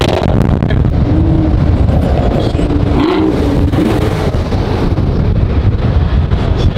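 Car engine running at road speed under heavy low road and wind rumble, its pitch rising and falling a couple of times as the cars accelerate in traffic.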